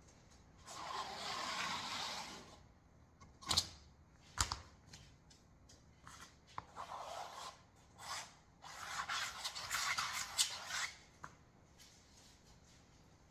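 Plastic ruler dragged through wet paint across a stretched canvas, a scraping rub of about two seconds. Two sharp knocks follow, then more rubbing across the canvas, the longest stretch near the end.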